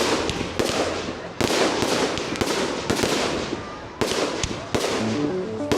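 Fireworks display going off: a string of loud bangs with crackling between them. Music with a stepping melody comes in near the end.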